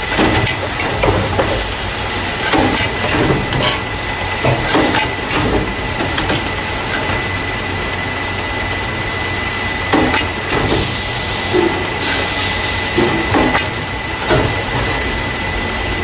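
Carton case packer running, the machine that loads paper juice and milk cartons into plastic crates: a steady low hum and a thin high whine under irregular clacks and knocks from the mechanism, with stretches of hiss.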